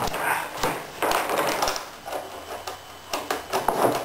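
Loose steel bolts, nuts and washers clinking and tapping as a hand picks through a pile of them on a plywood panel, a string of short sharp metallic clicks that come quicker near the end.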